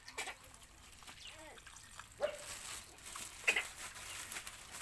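Puppies eating from a bowl, with wet chewing and lapping, and a few short whimpers from the puppies, the loudest about three and a half seconds in.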